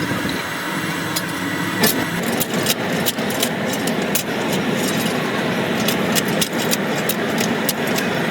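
Factory machinery running steadily, with frequent irregular sharp metallic clicks and knocks.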